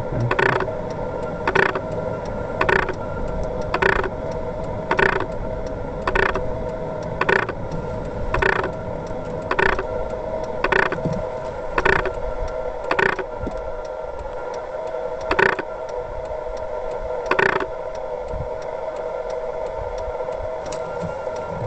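Steady mechanical hum with a sharp tick about once a second; the ticks stop a few seconds before the end.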